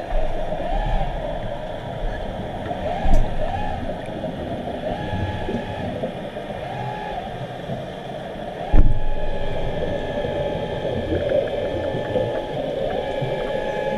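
Underwater sound in a diving pool: a steady wavering hum over a bubbling rumble, with two sharp knocks about three seconds and nine seconds in.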